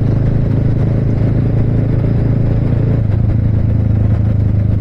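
Motorcycle engine running at a steady cruise with a low, even hum, heard from the rider's own bike along with road rumble.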